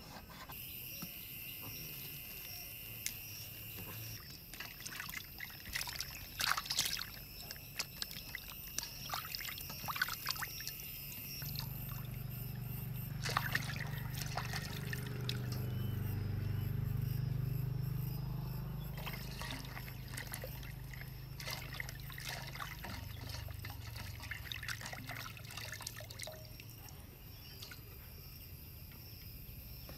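Bell peppers and okra being washed by hand in a steel basin of water: splashing, trickling and dripping in short spells. A low hum swells and fades through the middle, with crickets chirping steadily near the start.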